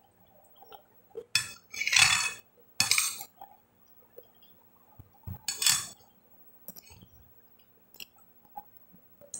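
A metal spoon scraping and clinking against a glass bowl: four short scrapes about a second and a half, two, three and five and a half seconds in, with faint small clicks between them.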